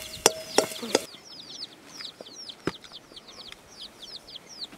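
Chicks peeping in a rapid, steady series of short, high chirps, each falling in pitch. A few sharp clicks sound as food is spooned from a clay pot onto a metal plate.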